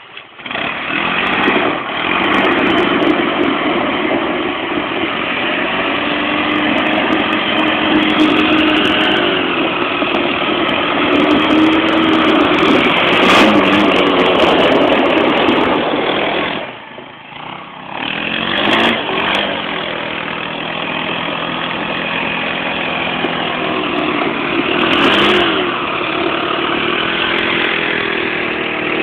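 ATV engine running and revving, its pitch rising and falling, with a brief drop in level about seventeen seconds in before it picks up again.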